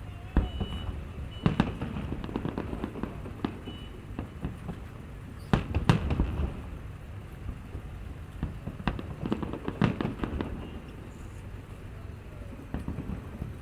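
Fireworks display: irregular booming bursts of aerial shells, the strongest about half a second, one and a half, six and ten seconds in, over continuous crackling and rumbling.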